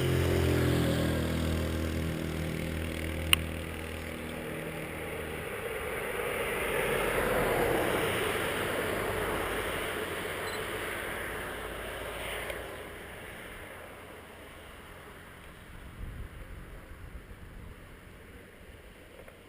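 A motor vehicle engine running steadily, with a sharp click about three seconds in. The engine's steady note stops after about five seconds, giving way to a rushing swell of noise that builds and then fades away.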